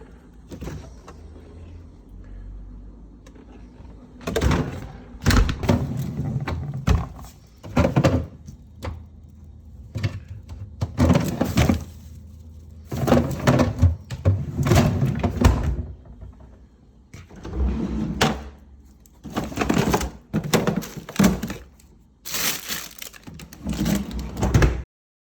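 Irregular knocks, clatter and rustling of objects being handled, in uneven bursts over a low rumble.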